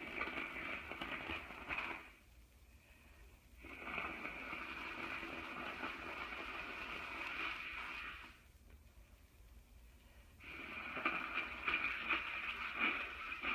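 A woman blowing her congested, stuffed-up nose: three long blows with short pauses between them, the middle one the longest.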